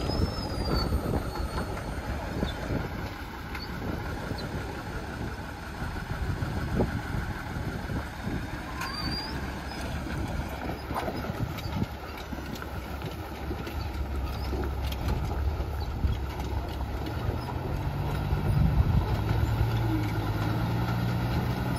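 Heavy diesel truck engine running at low speed as the loaded truck eases down the bank toward the river, with a low rumble throughout. A steady engine hum comes through more clearly in the last few seconds.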